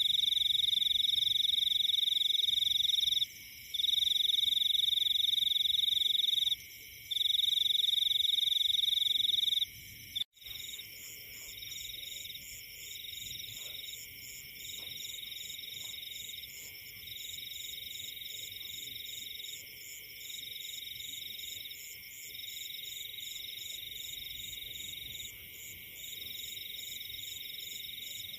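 Forest chorus of calling frogs and insects: a steady high-pitched trilling that breaks off briefly every few seconds. About ten seconds in it cuts abruptly to a softer chorus with a rapid pulsing higher call.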